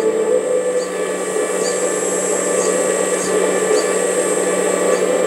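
Electric hydraulic pump of a 1/14-scale LESU RC hydraulic excavator running steadily, a whirring hum, while the hydraulics work the bucket's tilt.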